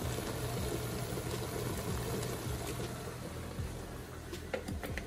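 Ground meat cooking in a stovetop pot with a steady soft hiss, with a few light clicks near the end.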